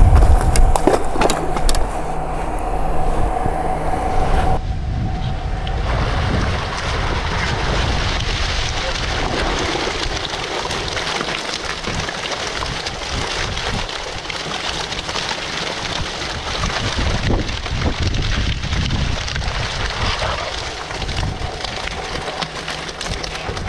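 Wind buffeting the microphone, a rough steady rushing. Under the first four and a half seconds runs a steady machine hum, which stops suddenly.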